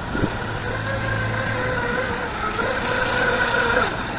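Volantex Atomic 792-4 RC race boat's brushless electric motor whining at speed across the water, its pitch rising a little, then dropping away near the end as the boat turns.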